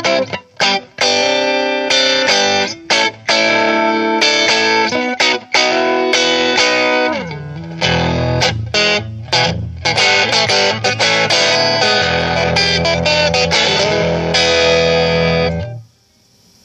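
Electric guitar on its neck pickup with the guitar volume full up, played through a Trinity Tweed tube amp set at volume 5 and tone 7: strummed chords and single notes, then a slide down into a low riff about seven seconds in. The playing stops suddenly near the end, leaving only faint amp hiss.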